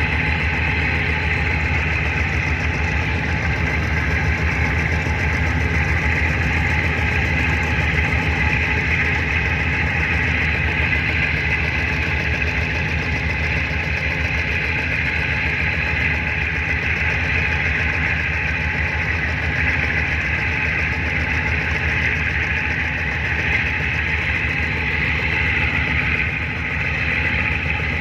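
Tugboat's diesel engine running steadily at constant speed, with an even low beat and no change in revs.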